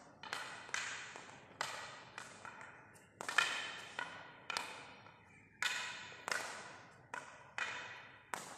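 Field hockey stick tapping a hard hockey ball while dribbling, about a dozen sharp knocks at an uneven pace, each with a short ringing tail.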